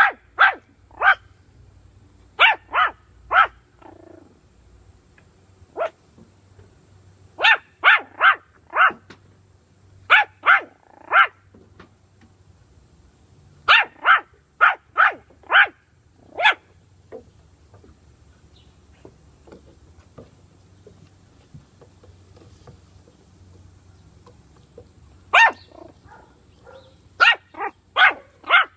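Yorkshire terrier puppy yapping in quick runs of three to six high-pitched barks, with a long pause in the middle.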